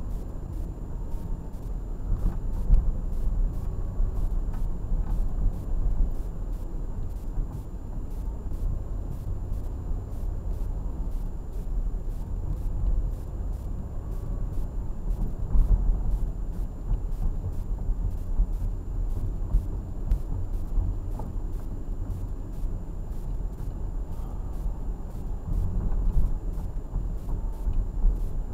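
Car driving at low town speed, heard from inside the cabin: a steady low rumble of engine and tyre noise.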